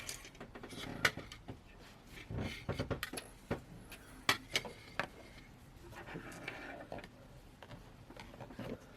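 Scattered light clicks and knocks of small tools and phone parts being handled on a workbench, with a softer rustle partway through.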